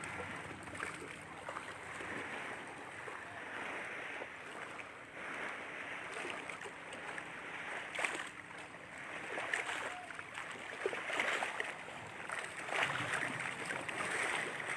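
Water lapping and splashing against a shoreline: a steady rush with irregular small splashes, a sharper splash about eight seconds in and the wash growing louder near the end.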